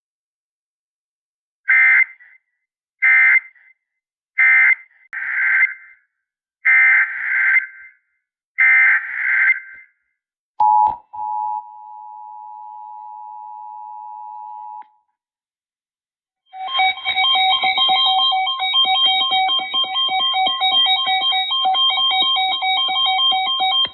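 Emergency Alert System SAME data bursts, a screechy warble: three short bursts, then three longer ones. Next comes the EAS two-tone attention signal, held steady for about four seconds. About 16 seconds in, a louder alert tone made of several steady pitches starts and keeps going, crackly from a faulty audio connection.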